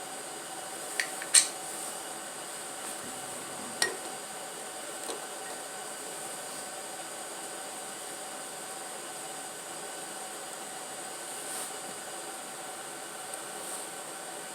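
A few sharp metal clinks from a connecting rod cap and its bolts being handled and taken off a slant-six engine, the loudest about a second and a half in and another near four seconds. A steady hum runs underneath.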